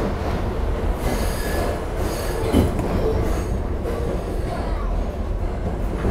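Kawasaki R62 subway car running through a tunnel, heard from inside the car: a steady rumble of steel wheels on rail. About a second in, the wheels squeal high-pitched for about a second and a half.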